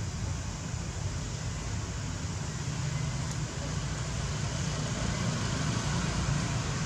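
Steady outdoor background noise: a low rumble with an even hiss above it, growing slightly louder over the second half, with no distinct knocks or calls.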